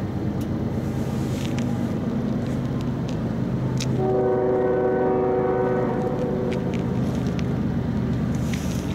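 A diesel locomotive's multi-chime air horn sounds one long blast about four seconds in, over the steady low rumble of the approaching train.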